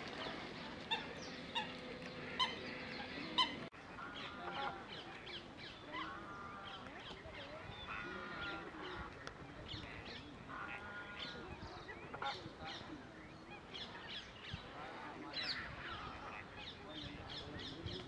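A chorus of wetland birds calling: many short, repeated calls overlapping, with a few sharp louder notes in the first few seconds.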